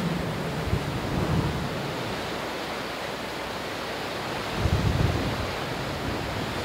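Storm wind blowing steadily, with low rumbling gusts buffeting the stereo microphone about a second in and again around five seconds in.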